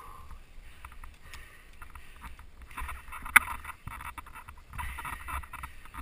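Mountain bike rolling over a dirt forest singletrack: tyres on dirt and the bike rattling with many small ticks, over a low rumble of wind on the microphone. One sharp clack about three seconds in.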